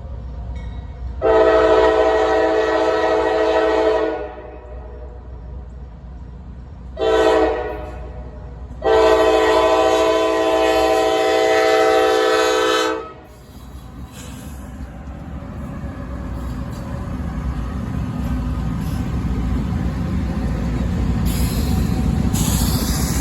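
Locomotive air horn sounding a chord in three blasts, a long, a short and a second long one, each with a brief echo as it stops. Then the rumble of the approaching train grows steadily louder, with a hiss near the end.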